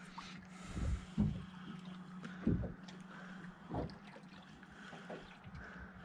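Water lapping faintly against a small boat's hull over a steady low hum, with four dull low thumps in the first four seconds.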